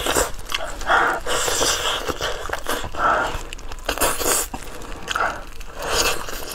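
Mouth sounds of biting and chewing braised pig's trotters, coming in separate bursts about once a second.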